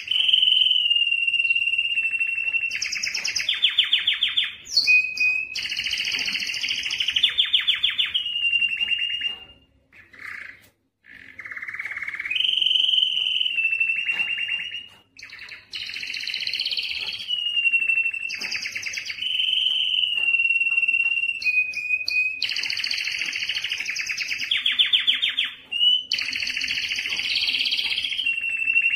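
Male domestic canary singing its excited courtship song, a continuous run of fast rolling trills alternating with held whistled notes, with a short break about ten seconds in.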